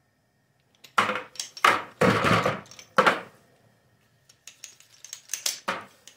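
Sharp metallic clacks and clinks of an aluminum bullet mold being handled, about a second in a loud run of knocks, then lighter clicks near the end.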